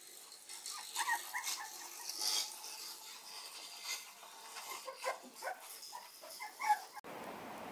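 Shiba Inu puppies giving many short, high yips and whimpers during play, with light pattering of claws on a laminate floor. About seven seconds in, the sound cuts to a steady hiss.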